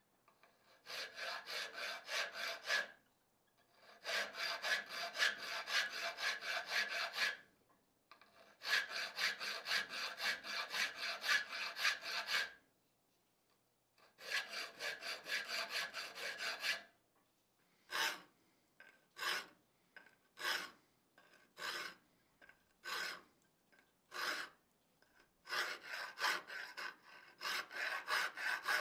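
Hand file rasping across the 5160 steel of a forged tomahawk head, doing decorative file work. It comes in runs of quick back-and-forth strokes broken by short pauses, then about six slow single strokes a second apart, then quick strokes again near the end.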